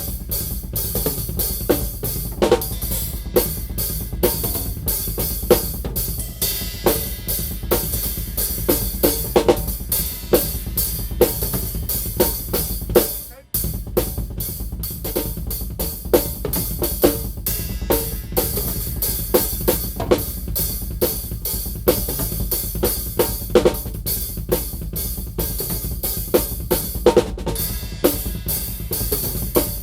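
Acoustic drum kit played in a busy groove of snare, bass drum and cymbal/hi-hat strokes, led with the left hand. It stops briefly about halfway through, then picks up again.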